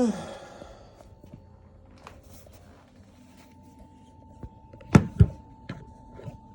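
Handling noises from fumbling with the camera setup: a brief falling squeak-like tone at the very start, scattered faint clicks, then two sharp knocks in quick succession about five seconds in, the loudest sounds here. No drill or grinder is running.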